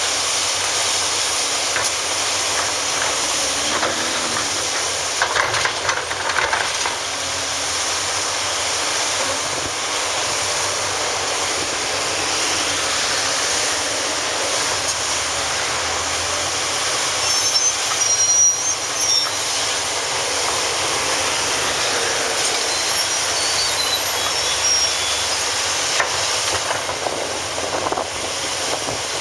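Hitachi ZX870-3 excavator working rubble with its bucket: steady engine and hydraulic running noise, with clattering of rubble and bucket about five to seven seconds in and again around eighteen seconds.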